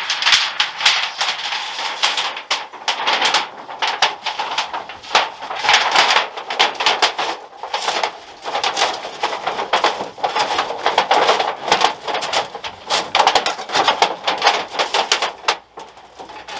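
Thin titanium chimney sheet crinkling and rattling continuously, with many small sharp clicks, as it is rolled by hand into a flue pipe.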